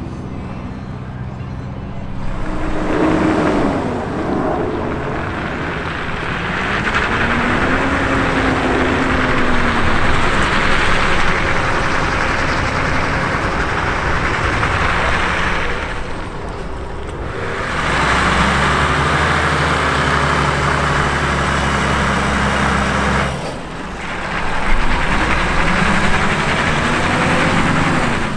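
Diesel engine of a heavy Volvo tractor unit running while it hauls a yacht on a low-loader, revving up and down over a steady hiss, and settling to a steady low drone for a few seconds. A steady hum comes first, before the truck sound comes in, and the sound cuts out briefly twice.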